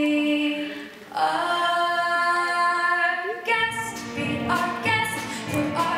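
Choir singing with a student orchestra of strings and winds: a held chord breaks off about a second in, a new chord is sustained, and a pulsing rhythm comes in about halfway through.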